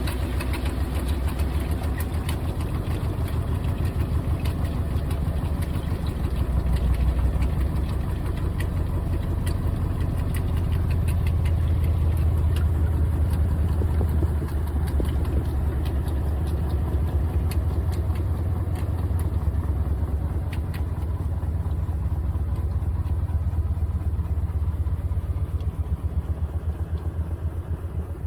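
GE top-load washing machine running with a heavy comforter load: a steady low hum with a fast rattle and small clicks, easing off slightly near the end.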